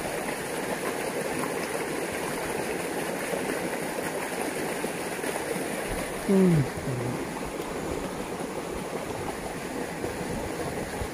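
Water rushing steadily down a narrow concrete irrigation channel. About six seconds in comes one short vocal sound falling in pitch.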